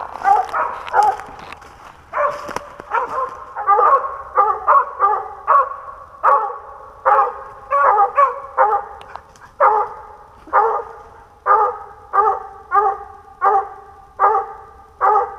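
Squirrel hound barking treed, a steady string of loud, even chop barks at about one and a half a second, the sign that the dog has a squirrel up the tree.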